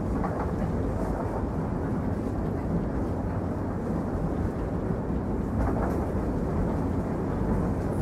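A steady, low rumbling noise with no distinct events, unchanged across the change of picture.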